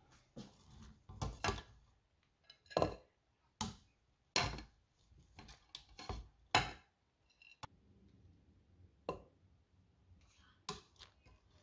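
Plastic slotted spatula scooping and fluffing cooked long-grain rice in a stainless steel pot: irregular scraping strokes and light knocks against the pot, about a dozen in all, the strongest in the first half.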